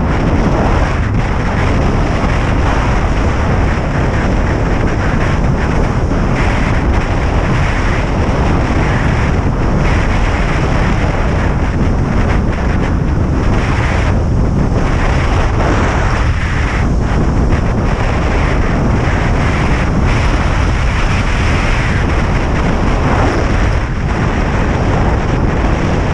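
Wind buffeting the microphone of a camera carried on a moving kite landboarder: a loud, steady rush with no letting up.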